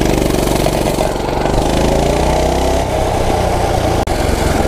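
A Coleman mini bike's small single-cylinder four-stroke engine running under way, with wind rushing over the microphone. The engine pitch climbs gradually through the middle.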